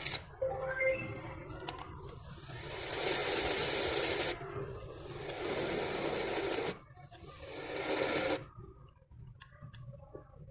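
Dremkit portable white noise machine playing its white noise and fan sounds one after another. Each is a steady hiss a couple of seconds long that cuts off abruptly as the next sound is selected: three in a row, the last one shorter.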